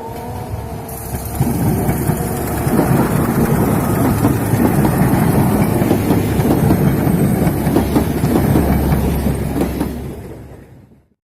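Diesel railcar train (KRD) passing close by: wheels clattering over the rail joints over a low rumble. The clatter builds about a second and a half in, holds loud, and fades away near the end.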